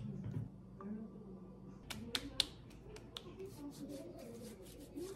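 A few sharp plastic clicks and knocks from a toner bottle being handled and set down on a wooden table, then a soft rustling hiss with light taps as hands rub and pat together.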